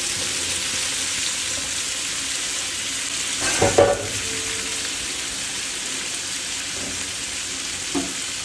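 Chopped onions, green chillies, tomato and potato sizzling steadily in hot fat in a large aluminium pot. A brief clatter of knocks about three and a half seconds in, and a single light knock near the end.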